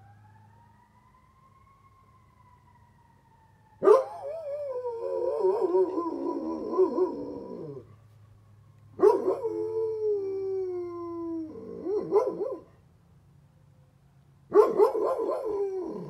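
Great Pyrenees howling in three long bouts, each starting sharply and sliding down in pitch. A faint fire truck siren rises and falls before the first howl.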